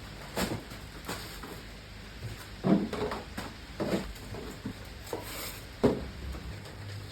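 Household items being handled and put away while tidying: a string of separate knocks and clatters of wooden and hard objects, with the loudest about two thirds of the way through, over a faint steady hiss.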